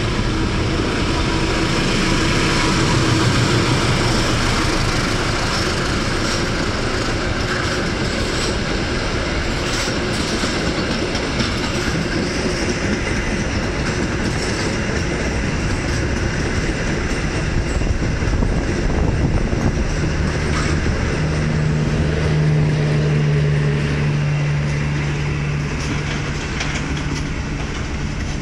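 Diesel-hauled passenger train passing close by on a station track: the locomotive runs past first, then the coaches' wheels run along the rails in a continuous rumble. A steady low hum joins in about twenty seconds in, and the sound eases slightly as the train pulls away.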